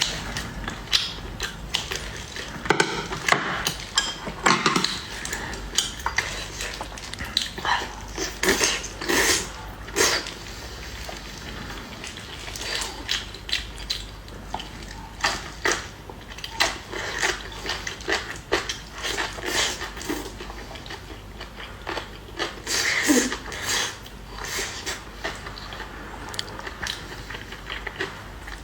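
A person eating: chewing and biting, with utensils clicking against dishes in short, irregular knocks.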